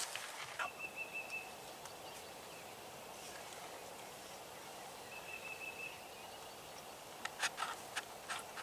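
Quiet open-field ambience with a faint high steady whistle held briefly twice, and a few short sharp clicks near the end.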